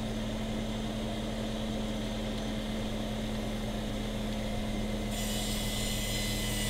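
A car idling steadily, and about five seconds in a small electric motor in a motorized license-plate curtain runs for about two seconds with a high whir as it covers the plate.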